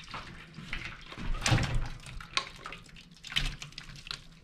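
Cooked chicken in its gravy being scooped and moved into a cooking pot: wet, liquid sounds with irregular spoon-and-pot clatter.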